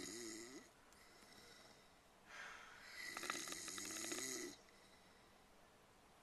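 A sleeping person snoring: a rattling snore tails off in the first second, and after a quiet breath another rattling snore comes from about two and a half to four and a half seconds in.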